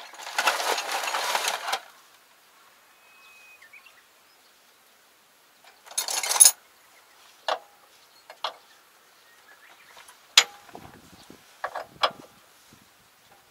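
Hand tools rattling as someone rummages through a metal toolbox of sockets and wrenches: a clatter lasting about two seconds, another about six seconds in, then about five single metallic clinks.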